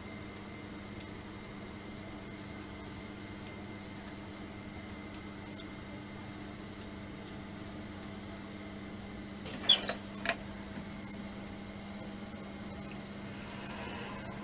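Vitronics Soltec Zeva selective soldering machine running with a steady mechanical hum. About two-thirds of the way through, two sharp mechanical clacks sound half a second apart as its parts move.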